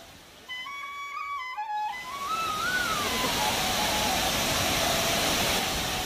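A flute melody from background music, joined about two seconds in by the steady rush of water pouring over a dam spillway.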